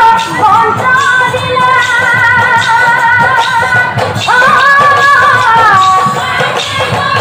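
A woman sings a diha, a devotional refrain of Assamese Nagara Naam, holding long notes with a wide vibrato. About four seconds in her voice leaps up to a higher held note, then slides back down before the end.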